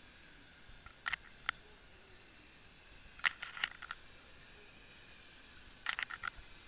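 Three short clusters of sharp clicks and taps heard underwater over a faint steady hiss, the first about a second in, the next about three seconds in, and the last near the end.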